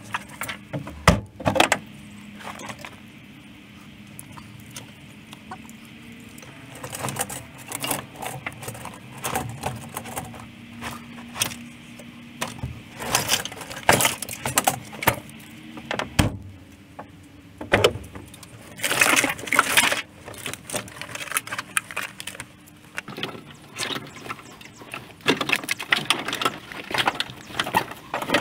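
Rustling and crackling of car floor carpet and fibrous sound-deadening underlay being dragged and pulled out of a stripped car cabin, in irregular bursts, with clicks and clatter of loose wiring and plastic clips. A faint steady hum runs underneath.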